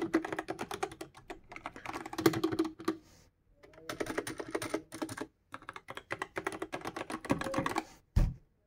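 Fast typing on a Gamepower Overlord compact mechanical keyboard with linear red switches, with a deep, full keystroke sound. The typing comes in rapid runs with short pauses about three and five and a half seconds in, and stops about eight seconds in, followed by a single dull thump.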